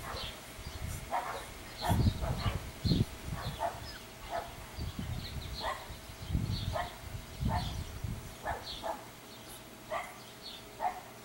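English bulldog puppy making short, high yips and whimpers, repeated every second or so. A few low rumbles come in around two and six seconds in.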